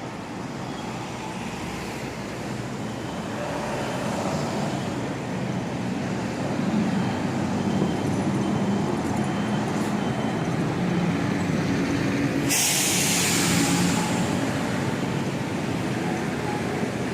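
Street traffic with a heavy vehicle's engine running close by, growing louder, and a sudden loud hiss a little past the middle, lasting over a second.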